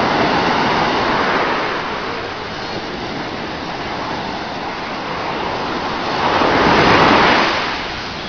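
Sea surf: waves washing on a shore, with one louder wave surging in about six and a half seconds in.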